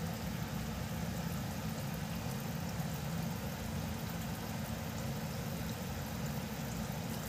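Chili garlic oil sauce simmering in a metal pot on the stove, bubbling steadily over a low, even rumble.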